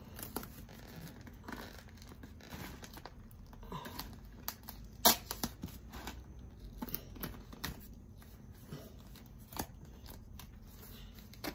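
Rustling and crinkling as items and packing materials are handled while a box is packed, with scattered light clicks and knocks, the sharpest about five seconds in.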